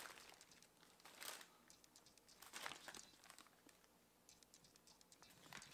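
Faint crinkling of a clear plastic bag being handled, in a few short rustles.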